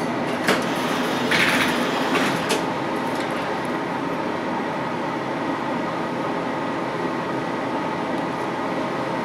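Steady hum inside a Stadtbahn light-rail car standing at a stop, with a few clicks and a short hiss about a second and a half in.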